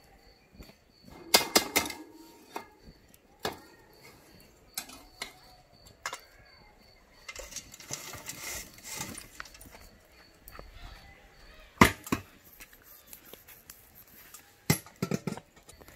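Metal chimney starter and kettle grill clanking as the chimney is lifted off and tipped, with a stretch of hot wood embers and charcoal tumbling and rustling into the grill bowl in the middle, and several sharp metal clanks, the loudest near the end.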